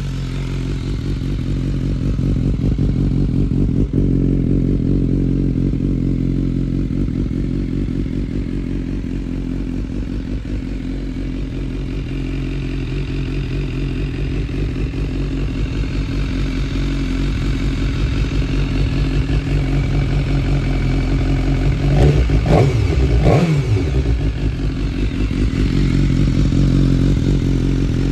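BMW S1000R's inline-four engine idling steadily through a full Arrow exhaust with an Akrapovic carbon silencer. About three quarters of the way through, the throttle is blipped twice in quick succession, the revs rising and falling back each time.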